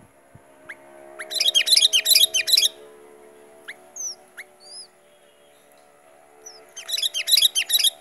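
Sooty-headed bulbul (kutilang) singing in its cage: two bursts of rapid, high chattering notes, about a second in and again near the end, with a few short single whistled notes between them.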